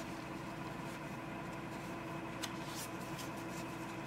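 Quiet room tone: a steady low hum under faint hiss, with one faint click about halfway through.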